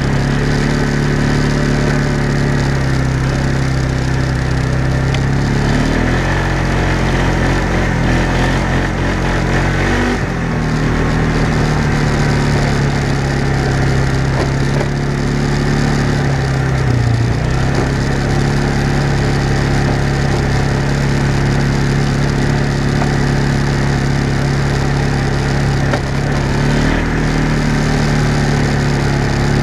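Small off-road vehicle's engine running steadily at low speed on a dirt trail, its pitch shifting several times as the throttle eases off and picks up, over a constant rumble of the ride.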